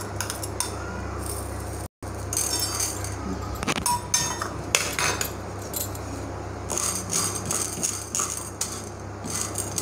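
Spatula stirring peanuts and split chana dal as they dry-roast in a nonstick pan: the seeds rattle and the spatula scrapes and clicks against the pan in irregular strokes, over a steady low hum.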